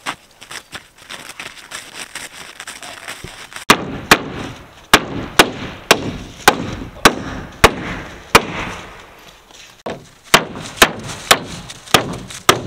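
Claw hammer driving nails into wood siding panels: sharp, evenly paced strikes about two a second, beginning about four seconds in, with a pause of about two seconds before the hammering resumes.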